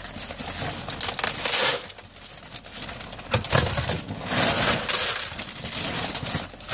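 Pine wood bedding pellets pouring from a plastic bag into a plastic litter bin, a gritty rattling hiss that comes in several surges, with the bag's plastic crinkling as it is handled.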